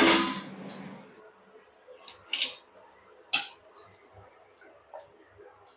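Steel utensils handled while cooked rice is dished out: a short scrape about two seconds in, a sharp clink a second later, then a few faint taps.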